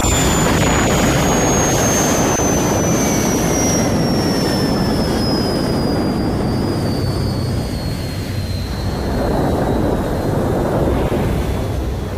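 Jet-powered land speed record car's turbine running with a heavy rumble and a high whine that falls steadily in pitch. The car is slowing under drag parachutes after its run.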